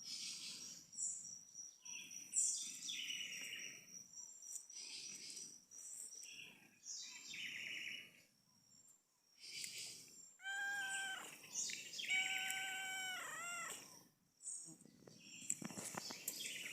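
Southern house wren (garrincha) singing repeated quick chirping phrases, with an insect's steady high whine in the first few seconds. Between about ten and fourteen seconds in, an animal gives two long wavering calls, the loudest sound.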